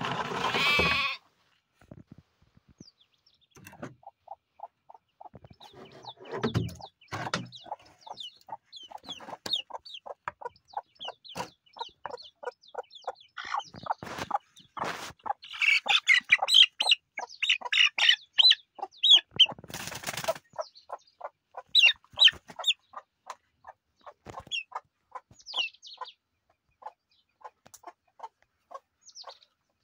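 Young chickens calling in a long run of short peeps and clucks, several a second, loudest and shrillest around the middle as one is caught by hand. A loud rustle opens it, and a few knocks and rustles of handling break in.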